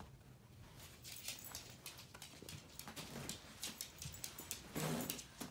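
Handling noise from a search through clothes and a bag: rustling of fabric with a quick, irregular run of clicks and taps, and a louder scuffle about five seconds in.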